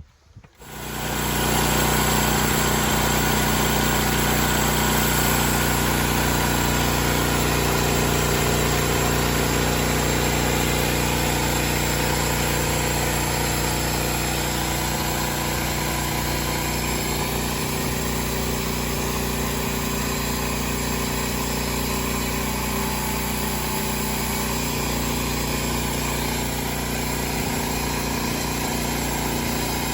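Small engine of a homemade sawmill running steadily, starting up loud about half a second in and holding an even pitch throughout.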